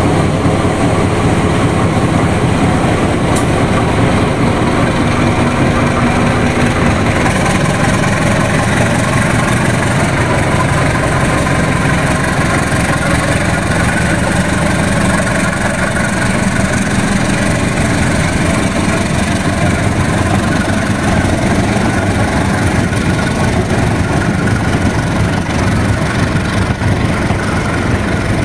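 Diesel engine of a CC201 diesel-electric locomotive running steadily at an even pitch.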